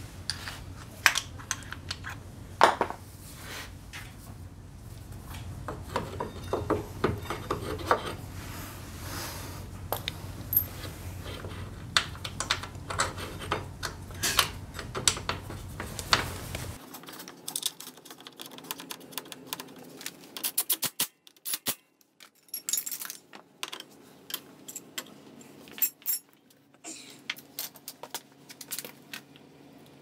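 Brake pads and caliper parts of a Honda PCX 125's rear disc brake clicking and clinking in gloved hands as the pads are seated and the caliper is fitted back over the disc. Sharp metallic ticks come irregularly, with a low hum under the first half that stops abruptly.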